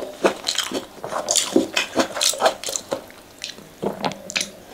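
Close-up eating sounds: mouth chewing fried flat rice noodles, with a fork and spoon clicking and scraping in a styrofoam food box, as a string of irregular short clicks and smacks.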